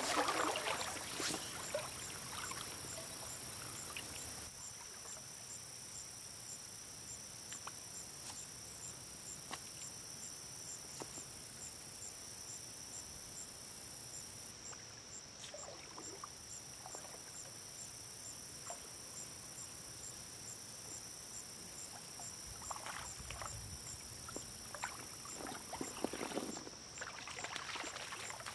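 Stream ambience of a small creek: a steady hiss of moving water, with now and then a brief slosh of water as someone wades in it.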